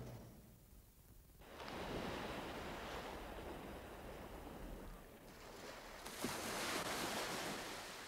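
Soft rush of sea waves washing ashore. It begins after about a second of near silence, eases off about five seconds in and swells again near the end.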